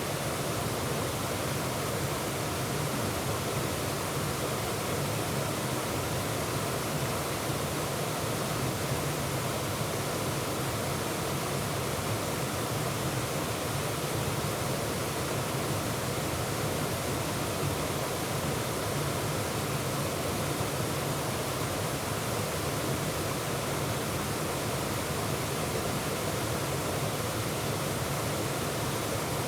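Waterfall cascading steadily, an even rushing of water over rock with no breaks or changes.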